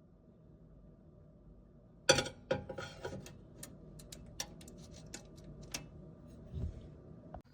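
Handling noises: a sharp knock about two seconds in, then a run of light clicks and taps, with a dull thump near the end.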